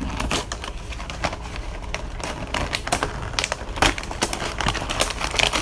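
Cardboard snack box being opened and handled: irregular clicks and crackles of the packaging.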